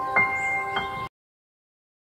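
Music: bell-like struck notes ring over a held chord, each new note higher than the last, and the track cuts off abruptly about a second in, leaving silence.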